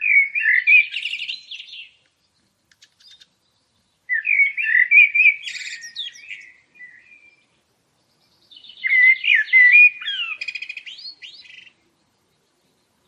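A songbird singing three short warbling phrases, each about two to three seconds long and about four seconds apart, each with a fast run of repeated notes.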